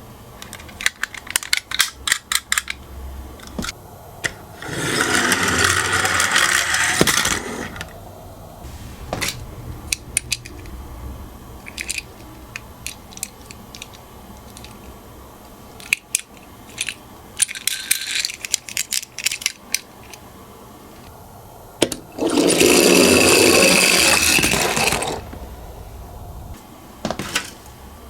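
Miniature toy cars being handled with many small clicks and taps, and twice a toy car rolling down a slope in a rattling run of about two to three seconds, the second a little longer.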